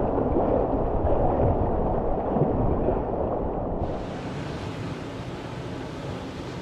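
Rushing river water heard muffled close up from a kayak, changing about four seconds in to a quieter, even hiss.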